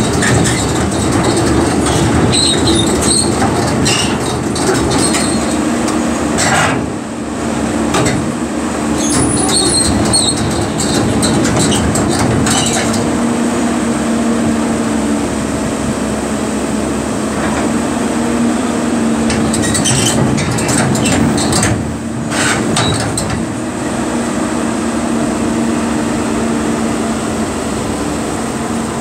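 Caterpillar 320D excavator's diesel engine running steadily under load, with metal clanks and rattles at intervals as the machine shifts on the steel trailer deck.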